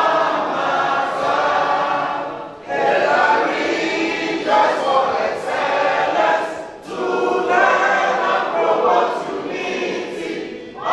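A group of people singing a school anthem together, line by line, with short breaks between phrases.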